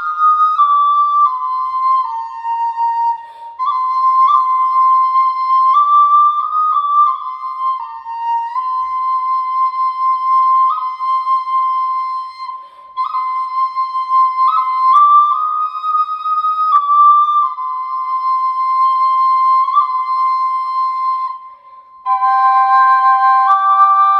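Small Native American double flute (pocket flute) playing a slow medieval melody in clear, high, held notes, with short breath pauses between phrases. Near the end a second, lower steady note joins as both pipes sound together.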